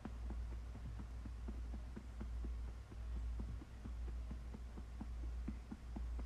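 A hand patting a newborn baby's back to burp him: quick, soft pats, several a second, over a low rumble.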